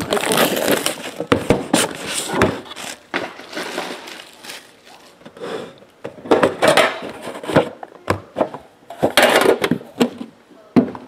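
Hands unwrapping and opening a trading-card hobby box: plastic wrap crackling and tearing, with scrapes and sharp knocks of the box being handled, in irregular bursts.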